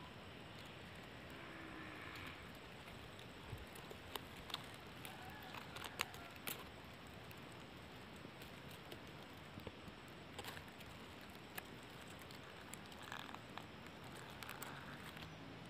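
Faint steady outdoor hiss with scattered small, sharp clicks and light rustles, the loudest click about six seconds in.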